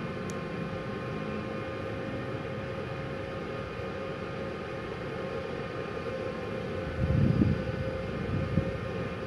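Inverter MIG welder switched on and idling, its cooling fan running with a steady hum. A short click comes just after the start, and a louder low rumble rises for about a second and a half near the end.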